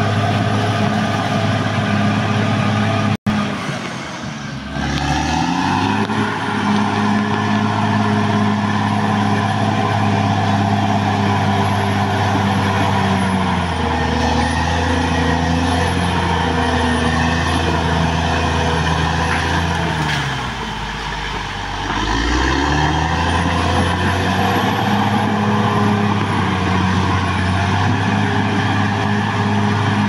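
Caterpillar D6R XL bulldozer's diesel engine running hard as the dozer pushes earth, a steady low drone. Twice, about four seconds in and again past twenty seconds, the engine speed sags and then climbs back up. A thin high whine wavers above it.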